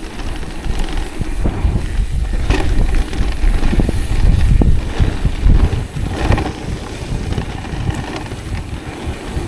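Mountain bike riding fast down a dirt trail: wind buffeting the microphone, tyres rumbling over the damp, tacky dirt, and the bike rattling and knocking over bumps. It is loudest from about three to five and a half seconds in.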